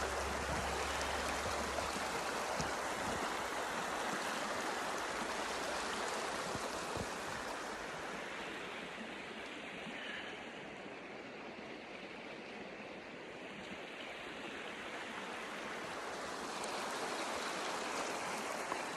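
A small creek of running water rushing steadily over rocks, dipping a little in the middle and growing again near the end.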